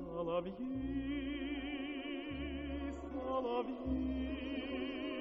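Background music: a wordless solo voice sings long held notes with a wide, even vibrato over low sustained bass notes that change every second or so.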